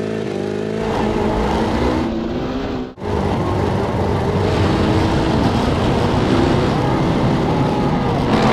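Off-road karts' engines at full throttle, heard from onboard cameras on the 750cc Honda-powered cross kart and the 1000cc BMW-powered trophy kart. The sound breaks off for a moment about three seconds in, then the engines run on steadily.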